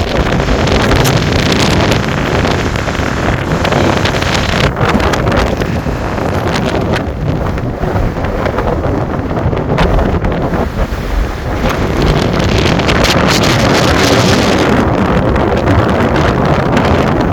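Strong wind buffeting the microphone: a loud, continuous rough rumble that surges and eases in gusts.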